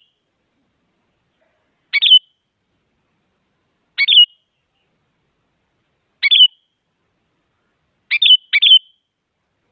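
Sooty-headed bulbul (kutilang) giving short, sharp calls that drop in pitch, one about every two seconds, with a quick pair near the end.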